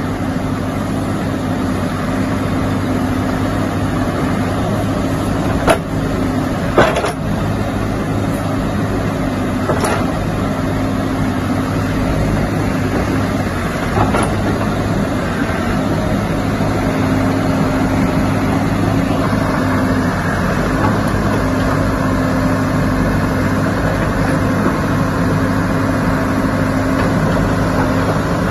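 Diesel engine of a JCB backhoe loader running steadily at idle, with a few short sharp knocks in the first half.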